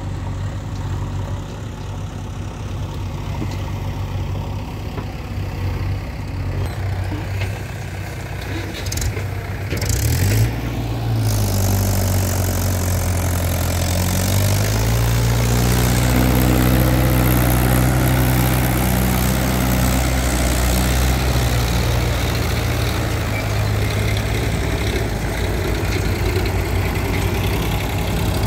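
Diesel engines of farm tractors and a backhoe loader running at work. About ten seconds in a nearer tractor engine takes over, rising in revs twice and then running steadily at higher revs.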